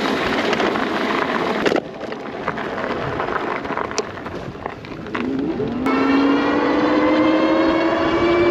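Electric e-bike motor whining and climbing steadily in pitch as the bike accelerates, over wind and tyre noise. Before that, a few seconds of rushing wind and road noise with a few sharp clicks.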